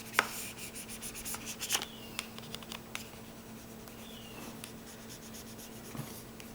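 A plastic card scraping and rubbing over a freshly applied laptop screen protector film to smooth it down and push out bubbles. It makes light scratches, small clicks and a few short squeaks.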